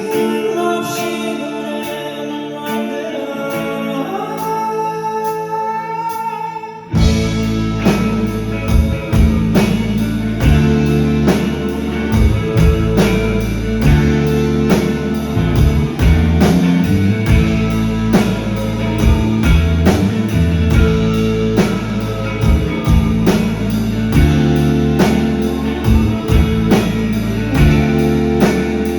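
Live rock band playing. It opens with singing over guitar, then the full band, with drums and bass guitar keeping a steady beat, comes in loudly about seven seconds in.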